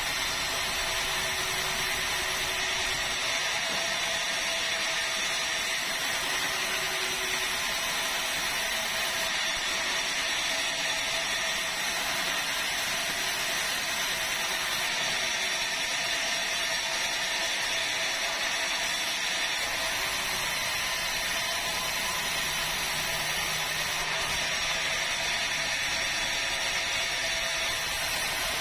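Industrial band sawmill running steadily as it resaws red meranti boards, a continuous high-pitched blade noise with no breaks.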